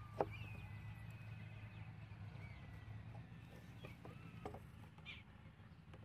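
Light handling clicks of wire, string and a plastic bottle being fixed to a wooden stick, with one sharp click about a quarter second in and a few soft taps later. Underneath is a steady low hum and thin high whistles.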